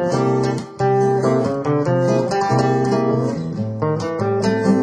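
Background music on acoustic guitar: plucked notes following one another, with a brief break a little under a second in.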